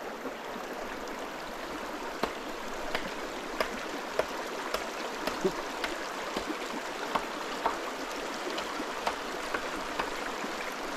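Shallow mountain stream rushing steadily over rocks, with irregular small sharp splashes and clicks as hands rinse and strip animal intestines at the water's edge.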